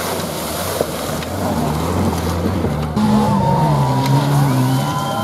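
Engines of off-road vehicles revving hard through a muddy, water-filled course, the engine note rising and falling over the hiss of mud and water thrown up. A louder engine takes over about three seconds in.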